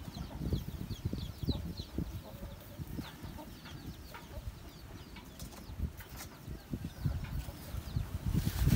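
Rustling and bumping of a gloved hand and a fine-toothed flea comb working through a dog's short coat close to the microphone, with small birds chirping in the background, mostly in the first second and a half, and a few sharp clicks.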